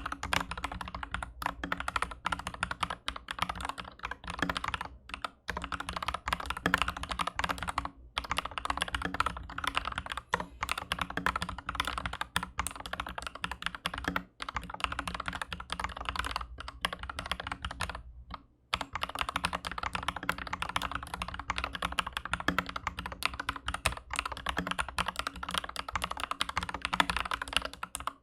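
Fast typing on an Aflion AF82 mechanical keyboard with MM linear switches on a steel plate: a dense run of keystroke clacks with a few short pauses, the longest about 18 seconds in.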